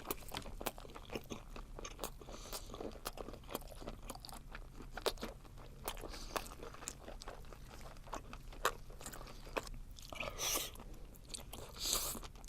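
Close-miked chewing of spicy webfoot octopus: a quick, uneven run of sharp, wet mouth clicks and crunches, with two longer noisy spells near the end.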